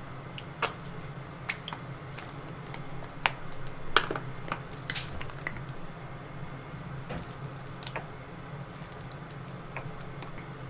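Scattered light clicks and taps from plastic condiment bottles and their caps as ketchup is squeezed and chūnō sauce poured onto raw chicken in a glass dish, the sharpest tap about four seconds in, over a steady low hum.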